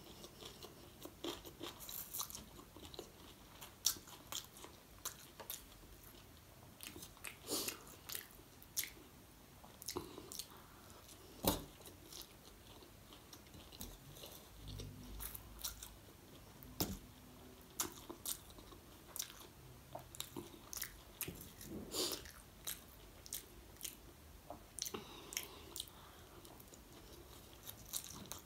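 Close-miked chewing and slurping of chowmein noodles, with many wet mouth clicks and smacks at an irregular pace.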